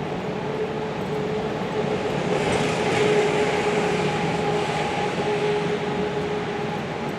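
Street traffic: a steady vehicle hum, with a passing vehicle that swells to its loudest about three seconds in and then fades.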